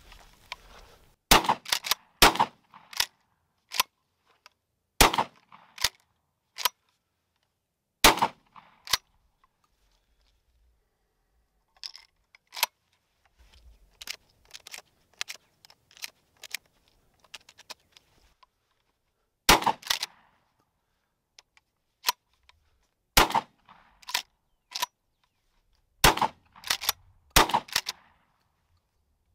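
A 12-gauge pump-action shotgun (Rock Island All Gen 12) is fired shot after shot, with the clack of the pump being racked between shots. In a quieter stretch about halfway through, shells click as they are pressed into the magazine tube, before a second string of shots.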